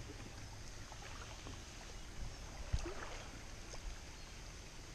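Kayak paddle dipping into calm river water, with quiet splashes and drips from the blade, and a single knock a little past halfway.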